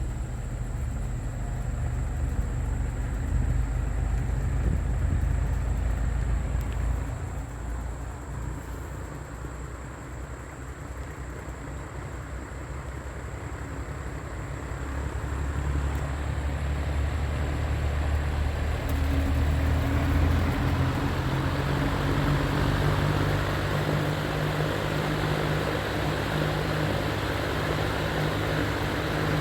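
1960s box fan running on low speed: a steady low hum with an airy rush. It dips for a few seconds, then grows louder and airier from about halfway through.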